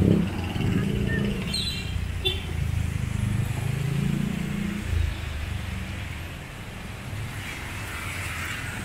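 Street traffic: a motor vehicle's engine running close by, its pitch rising a few seconds in. After about five seconds it fades to a quieter, steady traffic rumble.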